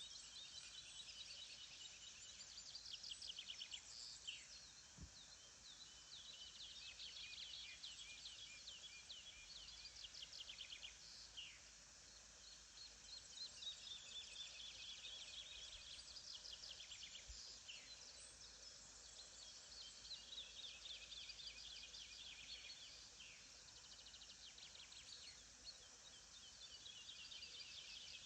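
A faint chorus of several songbirds singing and calling at once: many quick chirps, rapid trills and short downward-sliding notes overlapping without pause.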